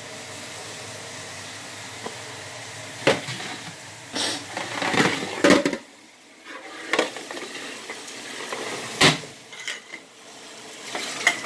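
Kitchenware being handled: a few separate knocks and clatters of dishes and pans over a steady low hiss.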